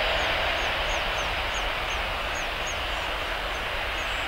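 Distant jet airliner's engines giving a steady rushing roar that eases off slightly, with a small bird chirping repeatedly over it, about three short chirps a second.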